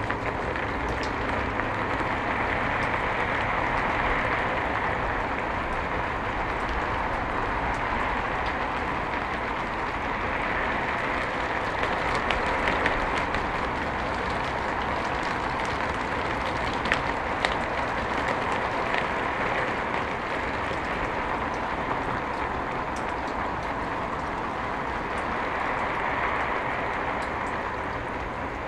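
Steady rain falling, an even hiss with scattered sharper drop ticks, fading out near the end.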